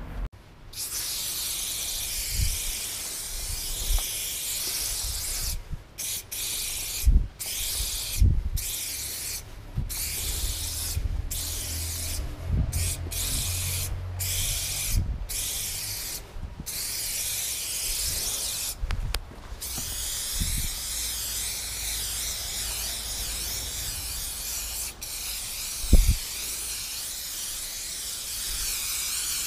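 Aerosol spray paint can hissing as it sprays: steady at first, then in many short bursts with brief breaks, then one long unbroken spray near the end. Low handling bumps throughout, and one sharp knock about 26 seconds in.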